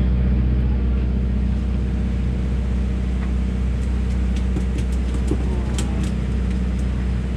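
Steady low drone of a fishing party boat's engine running, with a few light clicks and knocks of tackle on deck about four to six seconds in.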